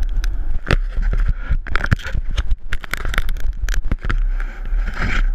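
Wind rumbling on a GoPro's microphone, with many small knocks and scrapes as a hand handles the camera and surfboard. The rumble gets heavier about four seconds in.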